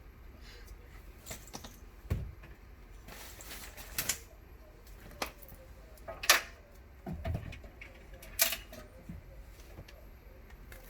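Scattered sharp clicks and knocks, roughly one every second, with a couple of deeper thuds, like hard plastic being handled.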